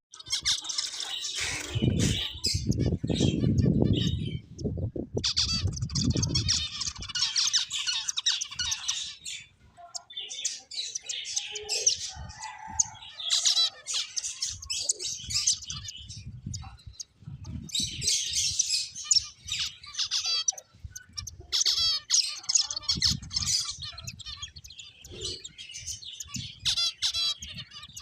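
A group of pet finches chirping and squawking in short, rapid high-pitched bursts, on and off throughout. Bouts of low thumping noise come with it, loudest for a few seconds near the start.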